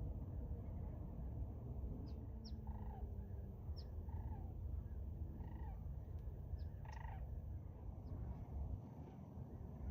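Distant animal calls from the wetland, short and slightly falling, repeating about every second and a half, with brief high chirps from small birds. Under them runs a steady low rumble.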